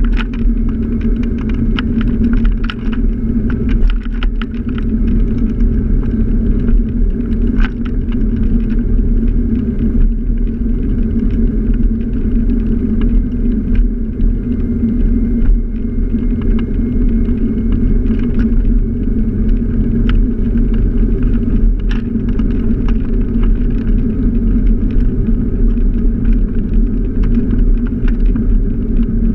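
Scooter riding along a paved street: a steady low rumble of ride and wind noise, with frequent light rattling clicks.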